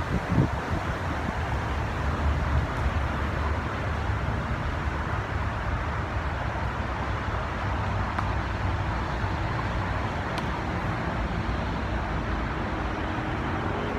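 Steady city traffic rumble, an even outdoor hum of distant road noise, with a brief low bump just after the start.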